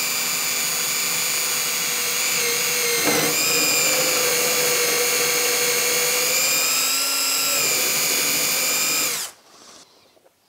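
Festool cordless drill running, boring a hole up through a wooden frame. Its motor whine dips briefly about three seconds in as the bit bites, runs steady again, and cuts off about nine seconds in.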